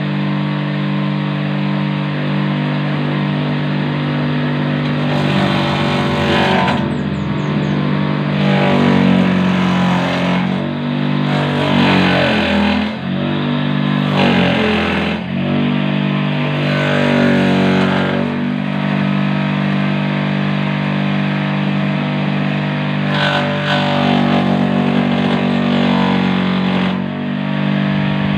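Electric motor salvaged from a water pump, driving a homemade banana-stem chopper, runs with a steady hum. Several times it gives a loud rasping burst as banana-stem sheaths are fed in and shredded. Under the heaviest loads, about halfway through, the motor's pitch sags as it bogs down, then comes back up.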